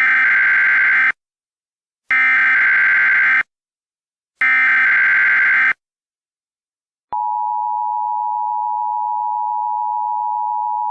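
Emergency Alert System tones: three short bursts of warbling SAME header data, each a little over a second long, then the steady two-tone attention signal starting about seven seconds in.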